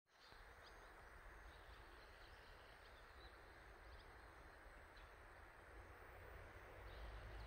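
Faint outdoor ambience: a few brief bird chirps scattered over a steady hiss, with a low rumble that grows louder near the end.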